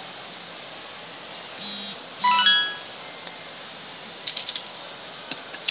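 A short buzz, then a chime of several bright tones that rings once and fades over about half a second, followed near the end by light crackling and clicking, like plastic wrap being handled.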